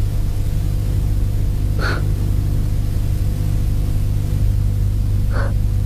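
Two short breathy 'ch' hisses, the German voiceless velar fricative [x] spoken alone as a demonstration, about two seconds in and again near the end, over a steady low electrical hum.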